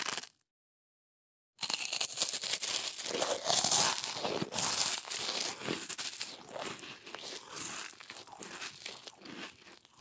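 A person biting into crunchy food and chewing it: a dense run of crackling crunches that starts about one and a half seconds in, loudest at first, then slowly fading as the chewing goes on.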